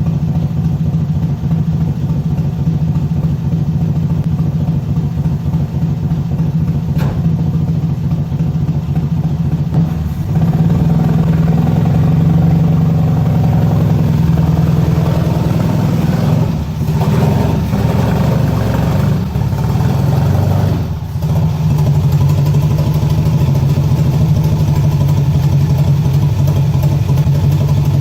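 A vehicle engine running steadily while driving. It gets louder about ten seconds in and eases off briefly twice near the middle.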